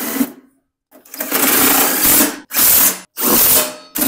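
Cordless power driver running the bolts of a snowblower's bottom cover in, in short runs. One run ends about half a second in; after a pause, from about a second in, three more runs of about a second each follow, with brief gaps between them.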